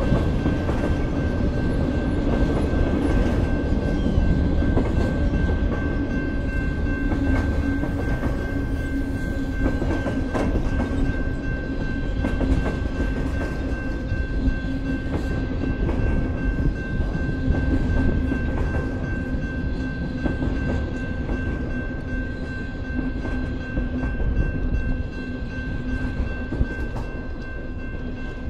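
Freight train of loaded flatcars rolling past at steady speed: a continuous rumble of wheels on rail with irregular clacks over the joints, and a steady high tone underneath.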